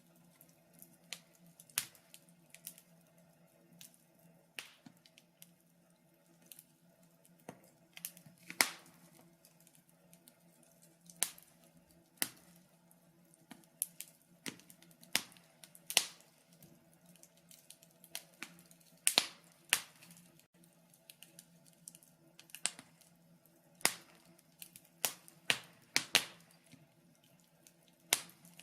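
Wood fire crackling, with irregular sharp pops and snaps, a few much louder than the rest.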